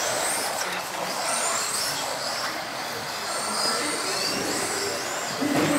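Electric radio-controlled racing cars running on the track, several motors whining high at once, their pitch rising and falling as they accelerate and slow through the corners.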